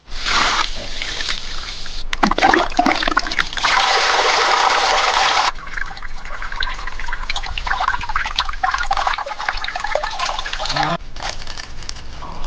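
Water sloshing and splashing, with many small wet clicks and a louder stretch of splashing just before the middle.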